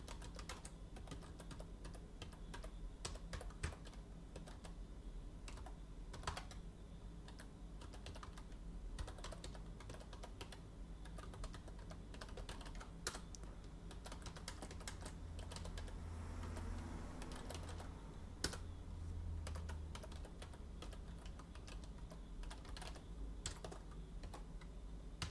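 Computer keyboard typing: faint, irregular key clicks as commands are typed.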